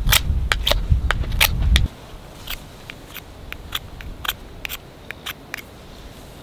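A loud low rumble that cuts off suddenly about two seconds in, with sharp, irregular crackles and clicks at about two to three a second throughout.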